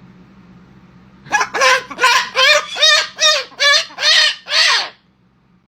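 Pet parrot cackling: a quick run of about nine rhythmic, chicken-like calls, two to three a second, that stops abruptly near the end.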